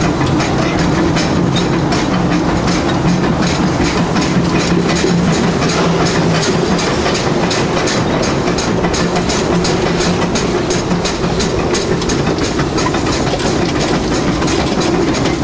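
Oil-fired steam locomotive running along the track, heard from its cab: a quick, even, rhythmic clatter over a constant rushing noise, with a steady low hum that drops away about halfway through.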